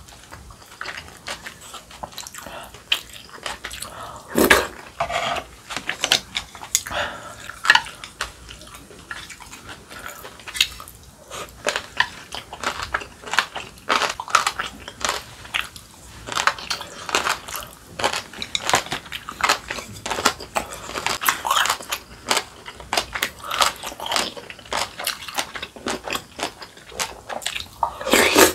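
Close-miked eating sounds: irregular chewing and biting of kimchi and rice soup, with a spoon and chopsticks clinking against an earthenware bowl and plates.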